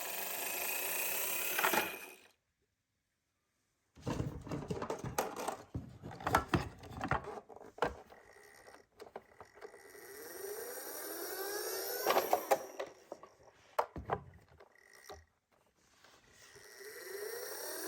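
Toy ambulance miniature car running down a slope: a whir that rises in pitch as it speeds up, heard three times, with clattering knocks between runs and short steady beeps of its electronic siren. The sound cuts out completely for nearly two seconds a couple of seconds in.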